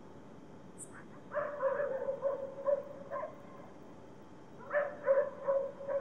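Dogs barking in two bouts: a run of short barks starting about a second and a half in, and another starting near the end.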